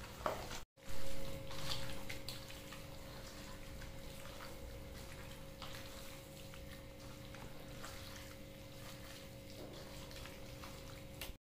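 Hands squishing and kneading raw chicken pieces in a wet spice paste with mustard oil in a steel bowl, giving soft, irregular wet squelches. A steady faint hum runs underneath, and there is a brief louder sound about a second in.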